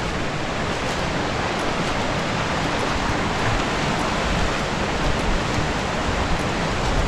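Steady, even rush of flowing water from a stream running through the glen.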